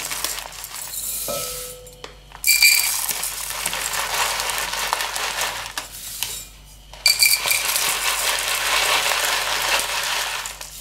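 Dry rolled oats rattling and hissing as they are poured from a packet into a plastic measuring cup and tipped into a glass bowl, in two long pours with a short pause between.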